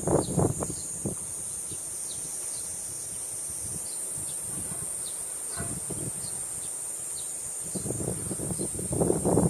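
Cicadas singing in a steady high-pitched drone, with wind buffeting the microphone in low gusts at the start and again near the end.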